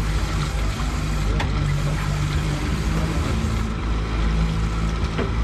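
Small fishing boat's engine running steadily at low trolling speed, a low even hum under the rush of wind and water past the hull.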